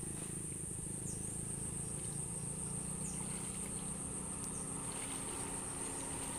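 Steady high-pitched insect drone, with a low steady rumble underneath and a few short falling chirps.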